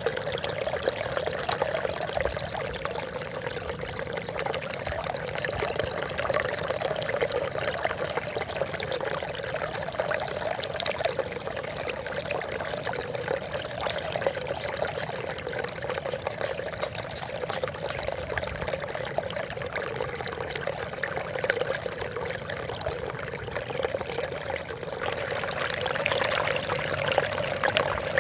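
Steady trickling, splashing water, growing a little louder and brighter near the end.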